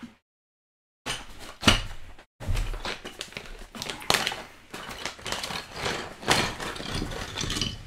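Clear plastic parts bag crinkling and rustling as hands open and handle it, with many small sharp crackles; it starts suddenly about a second in.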